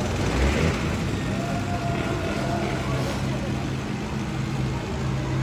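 Youth ATV's small engine running on a dirt flat track, a steady low drone with a whine that bends up and down as the quad rides round the turn.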